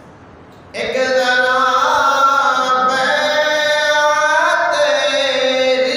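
A man's solo voice, unaccompanied, singing an Urdu manqabat (devotional poem) in long held notes that bend and waver in pitch. He comes in suddenly a little under a second in, after a brief pause.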